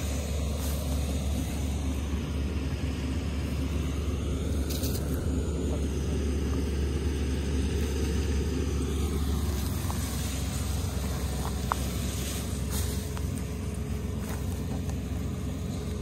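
Combine harvester's engine running steadily: a constant low rumble.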